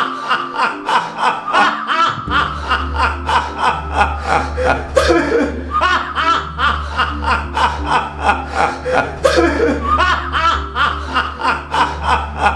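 A man laughing loudly and without a break, in rapid repeated 'ha' bursts of about three a second. A low sustained music drone comes in underneath about two seconds in.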